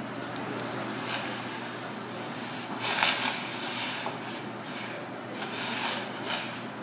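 Hot water in a small aluminium pan bubbling over a gas flame while sea robin fillets are blanched in it, with a steady hiss and several short, louder hissing surges, the strongest about three seconds in.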